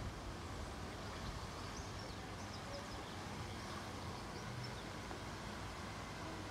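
Steady outdoor city ambience: a low hum of distant traffic, with faint high bird chirps about two seconds in.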